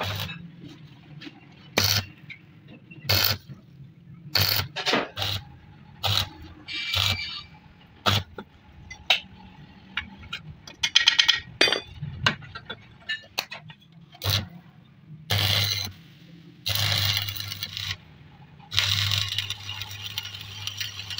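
Sharp metallic hammer strikes on a steel drift, one every second or two, knocking the old bush out of a car's front lower control arm. From about 15 seconds in, three bursts of stick-welding arc crackle with a steady electrical hum as a new sleeve is welded onto the arm, the last still going at the end.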